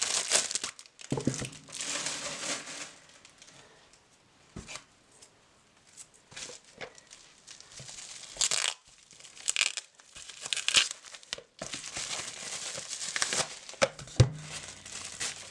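Packaging crinkling and tearing under the hands as a boxed tarot deck is unwrapped, in uneven spells with a quieter stretch in the middle. A soft thump near the end.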